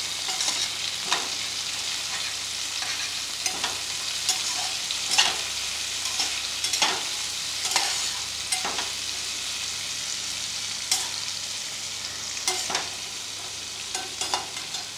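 Diced potato and sliced onion frying in oil in a metal pot, with a steady sizzle. A metal spatula stirs them, scraping and knocking against the pot at irregular moments, with a short lull past the middle.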